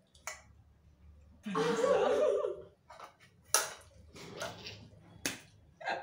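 A young woman's loud, high-pitched cry lasting about a second, then a few sharp knocks.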